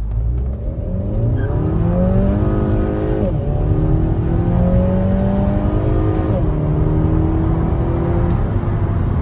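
Volkswagen Mk5 GLI's 2.0-litre turbocharged four-cylinder accelerating hard, heard from inside the cabin. The engine note climbs, drops at an upshift about three seconds in, climbs again, drops at a second upshift about six seconds in, then climbs once more.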